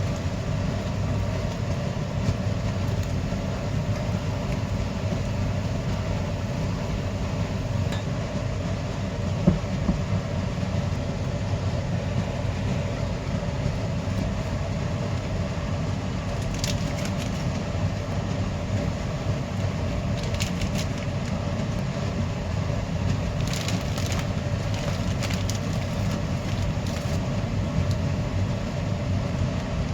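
Steady low rumble of a moving train, with a single knock about nine seconds in and a few light clicks in the second half.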